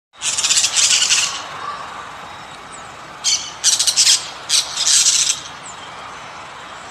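An animal's harsh, raspy calls: one long call at the start, then a quick run of four shorter ones from about three seconds in.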